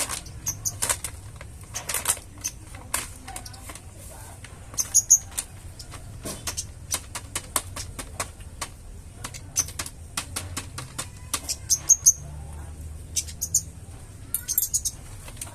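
A flowerpecker calling: many short, sharp ticking notes, several a second, with brief high chirps now and then.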